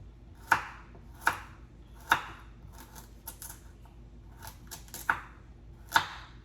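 Kitchen knife chopping a carrot on a cutting board: sharp separate strikes, about a second apart at first, with lighter taps in between.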